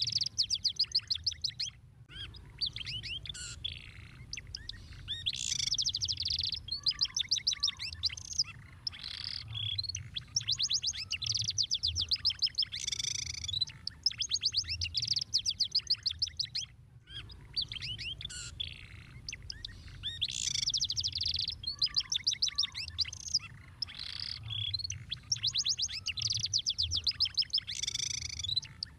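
Domestic canary singing a long song of rapid trills and rolls, phrase after phrase with only brief pauses. The same song sequence repeats about every fifteen seconds, over a faint low hum.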